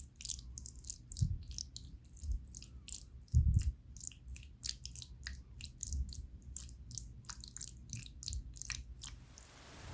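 Many quick, crisp clicks and crackles with a few soft thumps, from handling the macaroni and cheese ingredients or their packaging close to the microphone.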